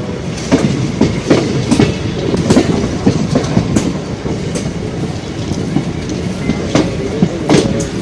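Train running along the track: a steady rumble of the coaches with sharp, irregular clatters of wheels over rail joints.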